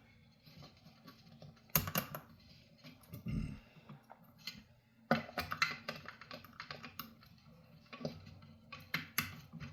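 Irregular small clicks and taps of hard plastic and a small metal bolt being handled while an M2 bolt is fitted into a 3D-printed part. There is one sharper click about two seconds in, a dull knock a little after three seconds, and a quicker run of clicks in the second half.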